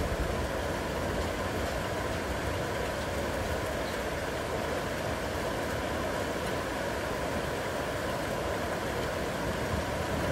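Heavy rain falling steadily: an even, unbroken hiss with a low rumble underneath.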